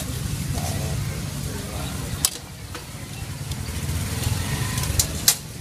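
Steady low rumble of street traffic, with a few sharp clicks about two seconds in and twice near the end.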